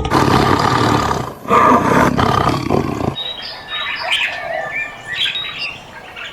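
Two loud roaring calls from a large animal, the second starting about a second and a half in, followed by birds chirping in short, high calls.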